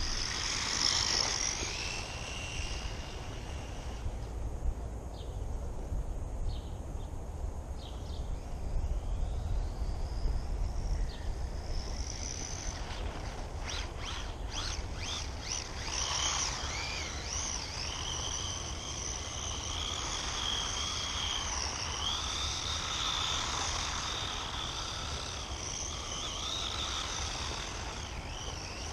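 WLtoys A959-B 1:18 electric RC car being driven: its motor's high whine rises and falls as it speeds up and slows. There are a few sharp clicks about halfway through, over a steady low rumble.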